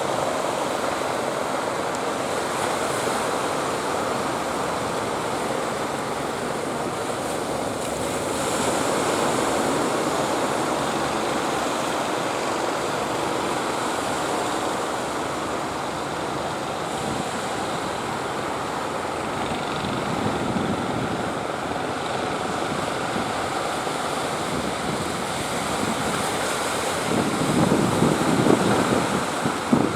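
Surf breaking steadily in strong wind, with wind buffeting the phone's microphone, gusting harder near the end.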